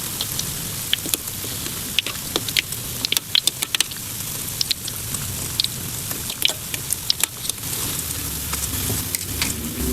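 Bread dough frying in hot oil: a steady sizzle with frequent sharp crackles and pops. A faint low hum comes in near the end.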